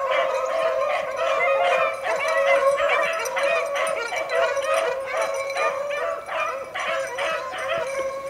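A pack of beagles baying together without a break, several hounds' voices overlapping: the hounds in full cry on a rabbit's trail.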